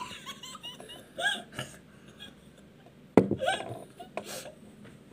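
Short wordless vocal sounds and giggles in brief bursts, with a sharp knock about three seconds in.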